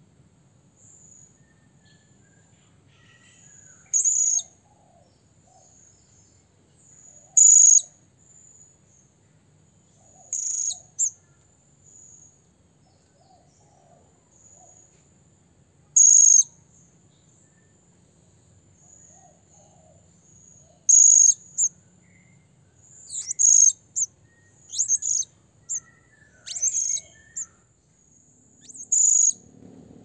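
Blue-crowned hanging parrot (serindit) giving short, shrill, very high calls, calling out to a rival. About a dozen calls come irregularly, a few seconds apart at first and in quicker succession in the last third, over a faint steady high-pitched buzz.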